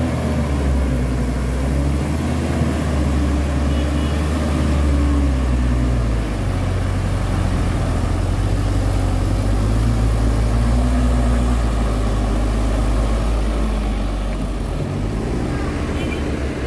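Diesel engines of a heavily loaded Mitsubishi truck and a JCB backhoe loader pushing it, both running hard as the truck is driven out of deep mud. A steady low drone whose pitch shifts up and down a few times.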